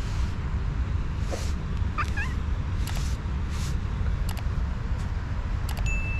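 Tabby cat hissing in short bursts, with a couple of brief cries, over a steady low wind rumble on the microphone. Near the end come a few sharp clicks and a held high tone.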